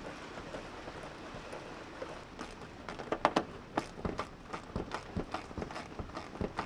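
Irregular light knocks and clicks from hands working parts of a convertible top into place. The clicks start about two seconds in and go on at an uneven pace, the loudest just past the three-second mark.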